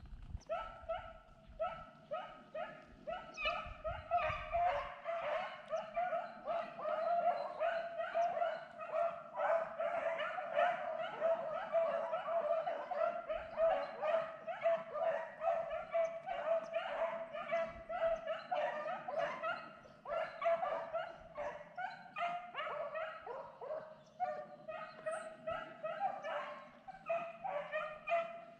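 A pack of rabbit-hunting dogs baying, many voices overlapping: scattered calls at first, filling into a continuous chorus after a few seconds. This is the cry of hounds running a rabbit's track.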